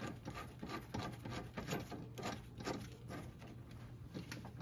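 Faint, irregular small metallic clicks and scratches as a nut and bolt are threaded by hand onto a sway bar link's heim joint, gloved fingers rubbing on the hardware.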